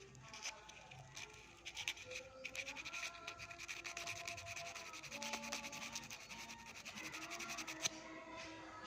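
Rapid scraping strokes of sandpaper rubbing on corroded starter-wire terminals and connectors, cleaning off the corrosion that was causing a loose contact.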